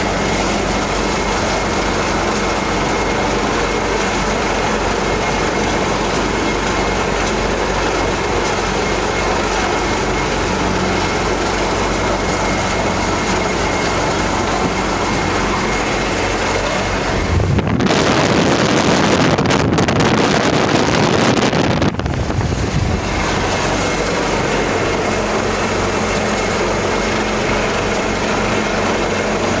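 Coastguard search-and-rescue helicopter, an AgustaWestland AW189, hovering with a steady rotor and turbine din and a low hum. For about four seconds past the middle, a louder gust of wind rushes over it.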